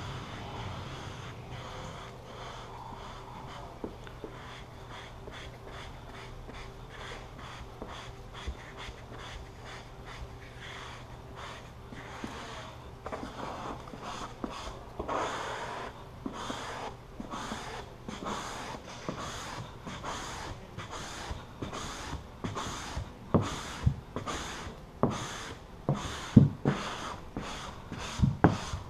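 Hand squeegee stroking vinyl stripe film down onto a car's painted roof: a run of short rubbing swipes, sparse at first, then coming quicker and louder in the second half, over a faint steady low hum.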